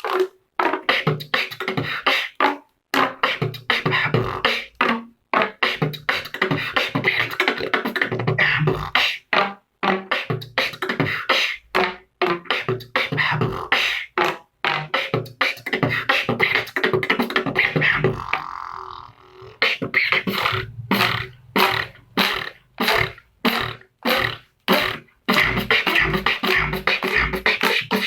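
Beatboxing with a washing machine hose: fast, continuous mouth-percussion beats over a steady pitched tone, with a brief break in the beat about 18 seconds in.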